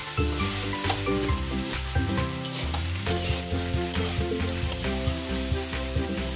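Fried rice sizzling in a wok while a metal spatula stirs and tosses it, scraping the pan with many small clicks, as the rice is fried until crispy.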